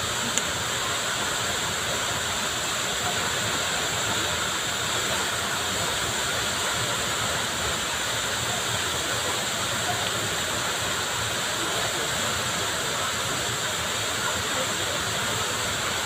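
Tall waterfall pouring into its plunge pool: a steady, even rush of falling water.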